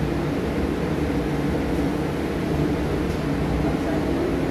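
Glass panoramic lift cabin in motion: a steady mechanical hum and whir, heard from inside the cabin.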